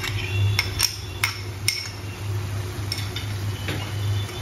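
A metal spoon clinking against a small glass bowl four or five times in the first two seconds while ketchup is scraped out, then only faint clicks, over a steady low hum.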